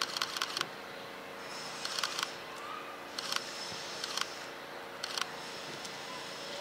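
Camera shutters firing in short rapid bursts, about five clusters of clicks, over a steady faint background hum.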